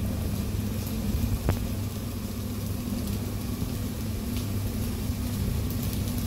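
Steady low mechanical hum of kitchen equipment at a vertical döner grill, with a few faint ticks.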